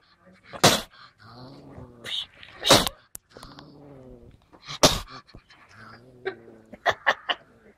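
Caged Asian palm civet growling, a low pitched rumble broken by three short, sharp spitting hisses about a second, three seconds and five seconds in, with a few quick clicks near the end: the defensive threat sounds of a cornered civet.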